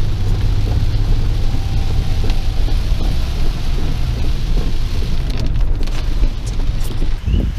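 Rain falling on a car's roof and windshield, heard from inside the cabin over a steady low rumble of the moving car. A few brief clicks come near the end.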